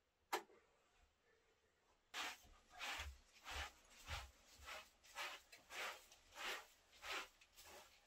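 Short straw hand broom sweeping a carpet: rhythmic swishing strokes, a little under two a second, starting about two seconds in. One sharp click shortly before the sweeping begins.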